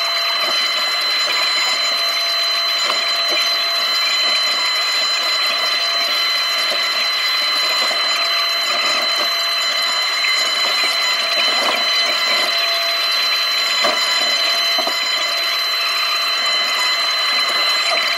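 Takeuchi TB290 compact excavator running while digging, heard from inside the cab: a steady engine-and-hydraulic drone with a constant high whine, and a couple of short knocks near the end as the bucket works the soil.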